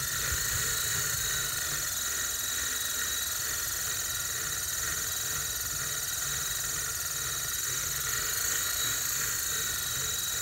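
Wind rumbling steadily on the microphone, with a steady high-pitched whine above it.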